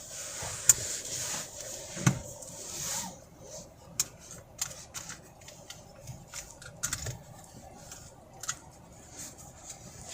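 Car seatbelt webbing pulled out with a soft rustling hiss, then a scatter of sharp clicks and rattles as the rear seatbelt tongues are handled and latched into their buckles.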